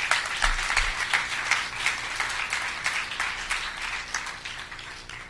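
Audience applauding at the end of a talk, the clapping slowly dying away.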